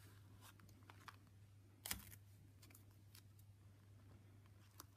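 Near silence: faint taps and clicks of hands handling fabric and tape on an embroidery hoop, with one sharper click about two seconds in, over a faint steady low hum.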